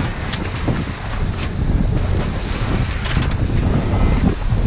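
Strong wind buffeting the microphone on the deck of a sailing catamaran under way, with the rush of waves along the hulls.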